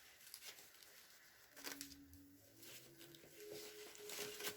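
Faint rustling and light handling sounds of lace and paper being sorted. A soft hum, stepping up in pitch a few times, comes in during the second half.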